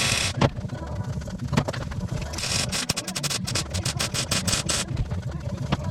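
Metalwork on a car's steel inner sill: a short burst of hiss and a few sharp clicks, then a run of rapid crackling strokes from about two and a half seconds in to near five seconds, over a steady low rumble.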